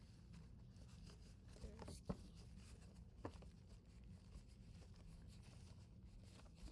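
Near silence: faint room tone with a low hum and a few soft clicks.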